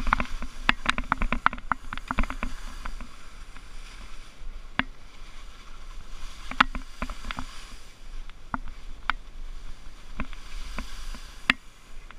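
Skis sliding and scraping over soft, slushy spring snow, with a steady hiss. Frequent sharp clicks and knocks run through it, densest over the first three seconds and scattered after.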